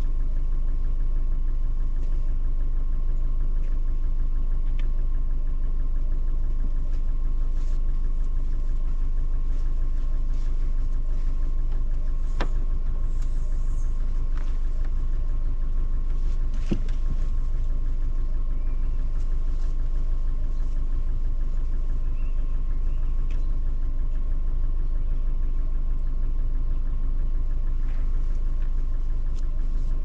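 Car engine idling steadily, with a couple of short sharp knocks midway.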